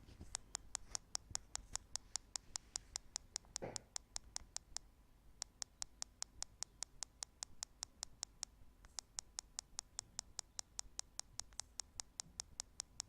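Bottom speaker of a Nexus 9 tablet giving off a steady train of sharp clicks, about four to five a second, breaking off twice briefly. It is not that loud; it is a fault that sets in after screen buttons or icons are pressed.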